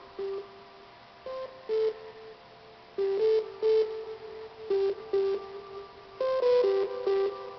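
Electronic dance music: a sparse synth melody of short notes, mostly in pairs with gaps between them, with no drum beat.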